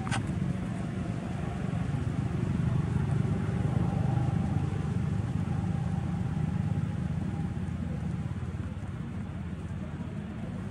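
Low, steady rumble of a motor vehicle's engine running, swelling about four seconds in and slowly easing off, with a faint held whine above it.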